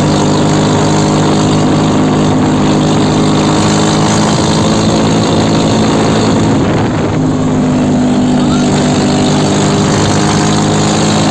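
Mahindra 275 DI tractor's three-cylinder diesel engine running steadily and loudly while driving at road speed, heard from the driver's seat. Its note briefly changes about seven seconds in.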